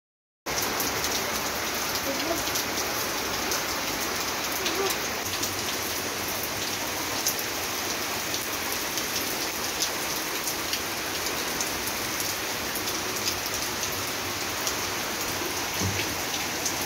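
Rain falling steadily on a concrete yard and on tree leaves, with many sharp drop ticks close by. The sound cuts in suddenly about half a second in, after a brief silence.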